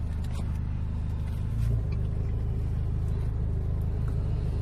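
Car engine idling: a steady low hum, with a single soft low thump about two seconds in.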